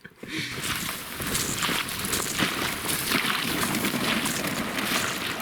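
Someone wading through shallow marsh water under a thin skin of ice: a steady, dense crackling and sloshing of breaking ice and water.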